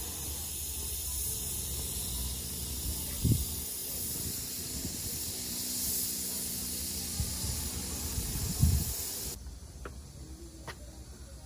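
Steady outdoor hiss over a low rumble, with two brief low thumps, typical of wind on a handheld microphone. It cuts off abruptly about nine seconds in, leaving quieter ambience with a few faint clicks.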